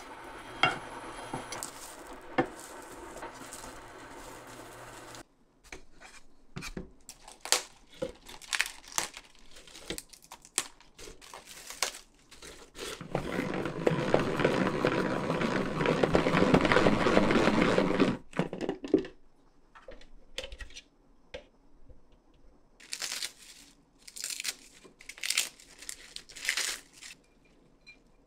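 Chopsticks clicking against a nonstick frying pan as an egg roll is turned, over a steady hum. After a cut, lettuce leaves crinkle, then a press-knob salad spinner whirs loudly and steadily for about five seconds as it spins the washed greens dry. Near the end, salad leaves rustle as they are dropped into a bowl.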